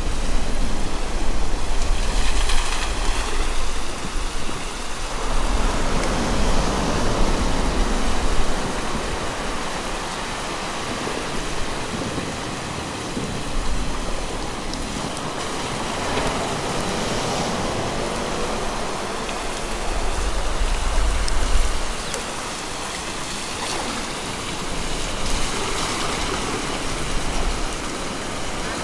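River water rushing through a wooden bucket water wheel, with water splashing and pouring from the turning wheel's buckets. A steady rush with deep low rumbles that come and go.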